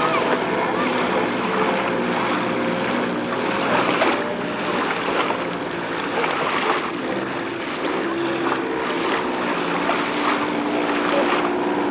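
A watercraft's engine running steadily over the rush of water, with wind on the microphone.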